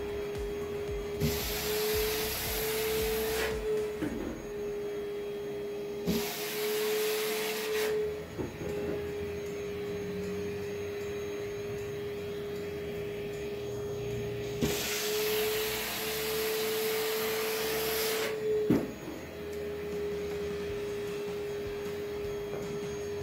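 Vacuum cleaner running with a steady high hum, breaking into a loud rush of air three times as it sucks at the plastic balls, with a few knocks.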